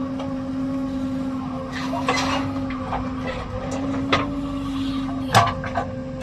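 Diesel engine of a JCB backhoe loader running at a steady pitch while it works, with a few sharp knocks, the loudest about five seconds in.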